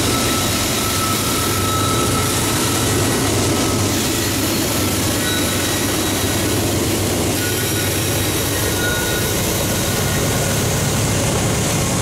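A freight train passing close by: the trailing GE Dash 9-40CW diesel locomotives run past in the first seconds, then covered hoppers and tank cars roll by with steady wheel-on-rail noise.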